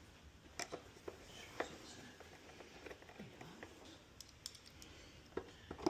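A few faint, scattered clicks and light taps, irregular rather than rhythmic, with a couple more just before the end.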